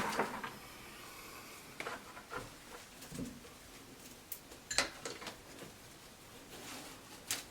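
Dogwood twigs being bent and wrapped by hand into a wreath, giving scattered light clicks, crackles and rustles.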